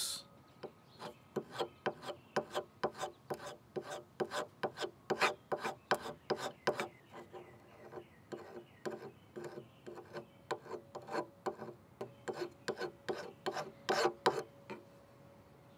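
A hand scraper rasping back and forth over a hard fill stick patch on a wooden cabinet edge, scraping the slightly high filler down flush with the wood. It makes quick, short strokes, about three a second, which stop near the end.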